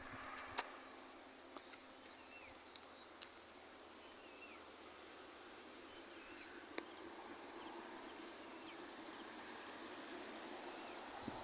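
Outdoor ambience with a steady high-pitched insect drone, like a cricket's trill, that starts a couple of seconds in and turns choppy near the end. A few faint short chirps and a couple of sharp clicks are heard over it.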